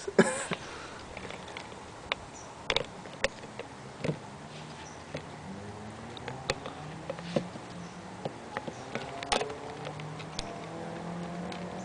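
Sparse light clicks and taps of handling noise on a thin plastic container, irregular and spaced out.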